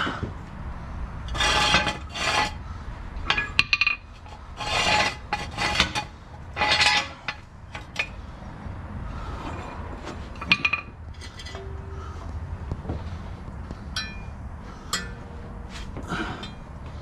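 Hand tools working on metal: several short bursts of metallic rasping and clinking in the first seven seconds, then scattered light clicks and clinks.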